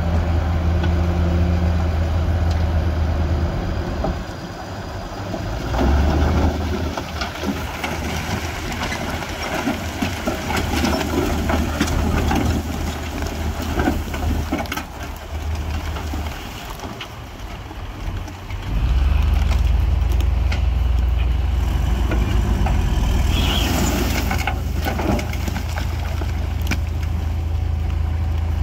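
Heavy diesel earthmoving machinery running with a deep engine drone, over crunching and scraping of rock and soil. The drone fades twice and comes back strongest about two-thirds of the way through.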